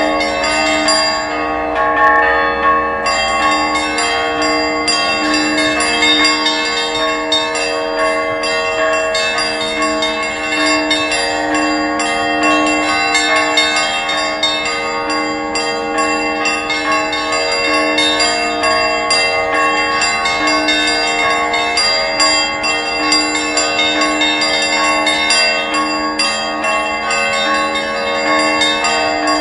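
Church bells ringing continuously: several bells struck in quick succession, their tones overlapping and ringing on.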